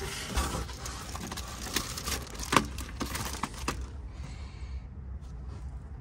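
Cardboard box being handled and opened, with rustling, scraping and a few sharp clicks and knocks, the loudest about two and a half seconds in, easing off after about four seconds.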